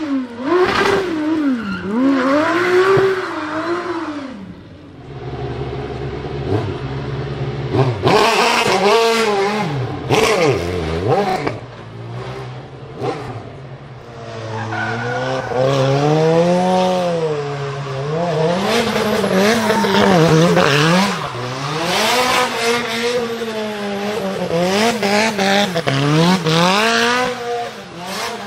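Race car engines revving hard and dropping back again and again, with tyres squealing in donuts and powerslides. First an Aston Martin Vulcan's V12, then a Mazda RX-7 drift car.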